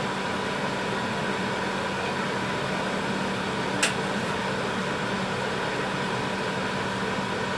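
Steady mechanical hum with a hiss while a pan of tteokbokki boils hard, and one sharp click about four seconds in.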